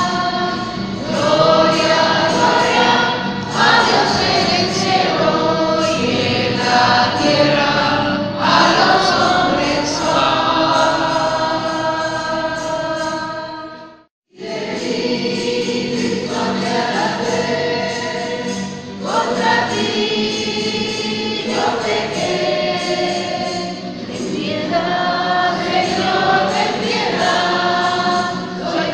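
A choir singing a slow religious hymn, broken by a brief cut to silence about halfway through.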